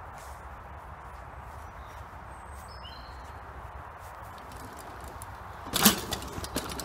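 Mountain bike landing off a dirt jump and rolling past close by, about six seconds in: a sudden loud clatter of the bike and its tyres on loose dirt, trailing off in a few smaller rattles. Before it, only a steady outdoor hiss with a few faint bird chirps.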